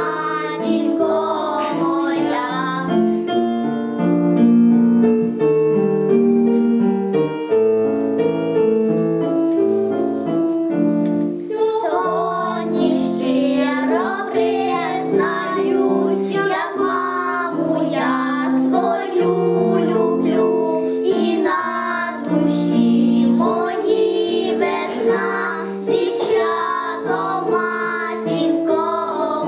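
Young girls singing a song together over a keyboard accompaniment. A few seconds in, the keyboard carries on alone for several seconds, and then the children's voices come back.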